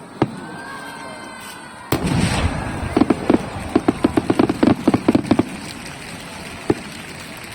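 Aerial fireworks: a loud bang about two seconds in, followed by a rapid run of crackling pops, with single sharp reports just after the start and near the end.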